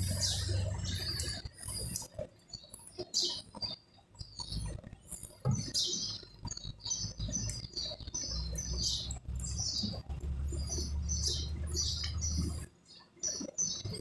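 Enamelled copper winding coils and loose magnet wire rustling, scraping and squeaking in small irregular clicks as they are worked by hand into the slots of a washing-machine motor stator. A low hum comes in past the middle and stops about a second before the end.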